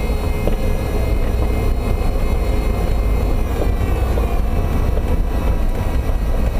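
Toyota MR2 Spyder on the move: a steady low road and drivetrain rumble with the power steering pump's whine, and a few light knocks from the BC Racing BR-type coilover suspension, the clunk being tracked down.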